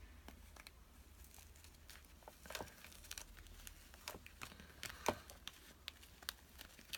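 Faint rustling and small clicks of a memory-foam ear pad being stretched over a plastic headphone ring by hand, with a few sharper snaps about two and a half and five seconds in.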